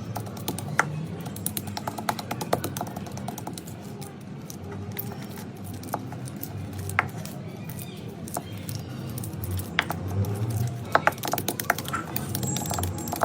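Chalk crunching and crumbling in irregular sharp crackles and clicks, over background music.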